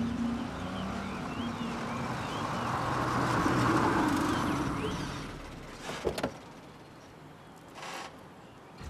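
Vintage black sedan driving past on a paved road, its engine and tyre noise swelling to a peak about four seconds in and fading away, with birds chirping. A sharp click about six seconds in, as the car door latch opens.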